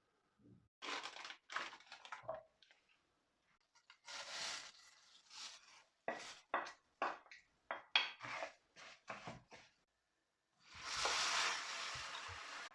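Kitchen food-preparation sounds: a run of short crunching or scraping strokes, about one or two a second, then a longer hiss of about two seconds near the end.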